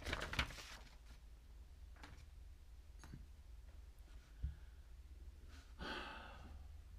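Quiet handling noises from hands working plasticine clay on a sculpture: a short rustle at the start, a few faint clicks, a dull thump about four and a half seconds in, and a longer rustle near the end.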